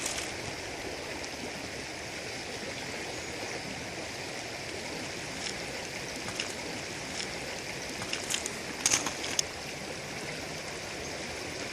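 River water running steadily over rocks. A few faint clicks come near the middle and about nine seconds in.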